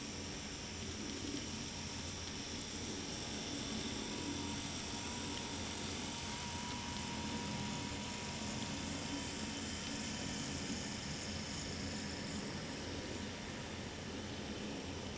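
N scale model freight locomotives and cars running past on the track: a steady small electric motor whir with a thin high whine over the rolling wheel noise, a little louder in the middle as the locomotives pass closest.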